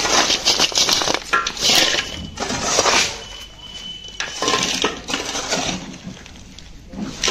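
Irregular clattering and clinking of hard objects being handled, in bursts, with a few quieter gaps.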